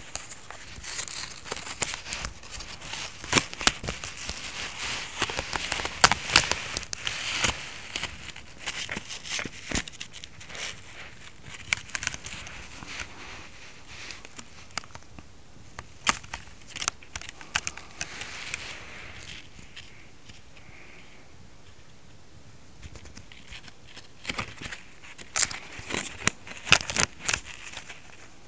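A kitten batting and biting a piece of stiff plastic shirt-collar packaging: irregular crackles and sharp clicks. A quieter stretch comes past the middle, and the clicking picks up again near the end.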